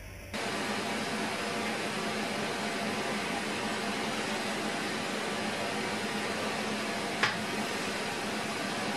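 1990 Mazak H630 horizontal machining center running with a steady whirring hum as its pallet table indexes round. A single sharp click about seven seconds in.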